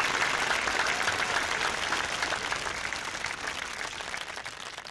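Applause, many quick overlapping claps, fading out steadily toward the end.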